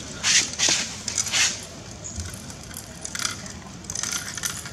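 Small bell on a puppy's collar jingling in short, irregular shakes as the puppy noses and mouths a plastic ball.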